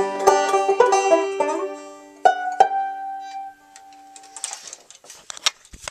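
Five-string banjo picked at a brisk pace. The tune ends about two seconds in on two final notes that ring out and fade, followed by a few faint clicks and rustles.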